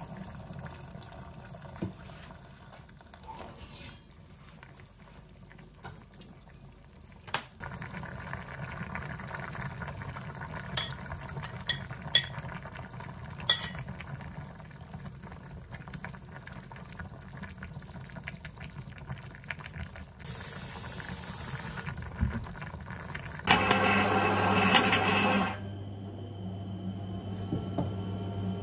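Cooking in a pot on an induction hob: water poured in over stir-fried meat and vegetables, then the stew bubbling, with a few sharp clinks of a utensil against the pot. A brief louder burst of hiss comes near the end.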